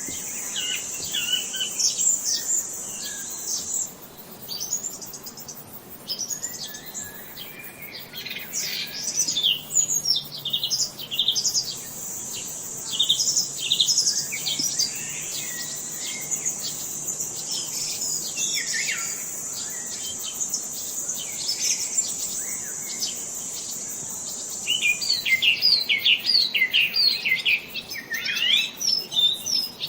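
Small songbirds chirping and twittering in many quick, downward-sweeping notes, several birds at once. A steady high buzz sits under them for the first few seconds and again through the middle. The chirping grows denser near the end.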